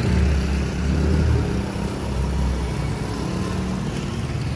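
Street traffic: a motor vehicle engine running close by, a steady low hum that is loudest in the first second and a half and then eases off.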